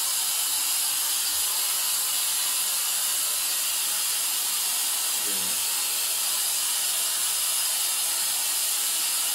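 Kica Jetfan KC1, a pocket-size 86,000 rpm jet blower, running at maximum speed while inflating a yoga ball through its nozzle: a really loud, steady rush of air with a high whine above it.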